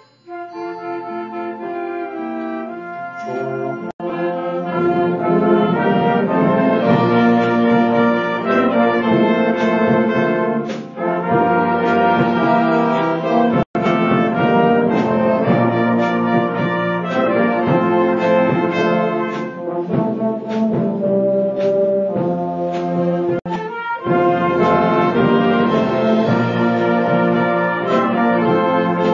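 Live school band playing an instrumental piece, with the brass section (trombones and trumpets) to the fore in full, held chords. The sound cuts out for an instant a few times.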